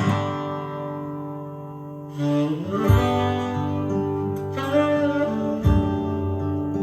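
Guitar music played back from a cassette on a Pioneer T-1100 deck: sustained strummed chords that change about two seconds in, with two low thumps a few seconds apart.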